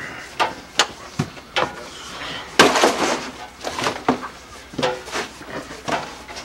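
A series of sharp knocks, about two a second at first, then coming more unevenly, the loudest a little before halfway.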